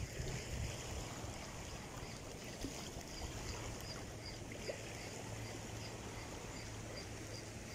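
Outdoor waterside ambience: a steady wash of wind and water noise with a low steady hum underneath, like a distant boat motor, and faint, evenly repeating high ticks.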